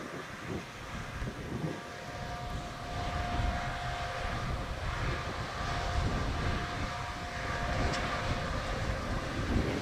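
Fendt 6275 L combine harvester running at work: a steady machine drone with a held whine that comes in a couple of seconds in and drops away near the end, and wind buffeting the microphone.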